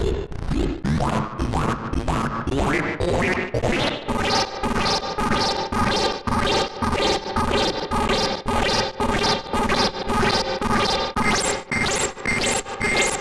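Pittsburgh Modular DNA Symbiotic Waves, a 9-bit digital oscillator module, playing rapid, evenly repeating synth pulses, its tone morphing between two waveforms as an LFO sweeps its balance CV. For the first few seconds the pitch sweeps upward again and again, then a denser, buzzier chord-like tone settles in about four seconds in, with a high steady tone joining near the end.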